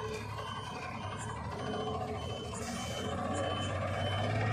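Diesel truck engine running, getting louder as the truck draws near, with a short high electronic beep repeating about twice a second.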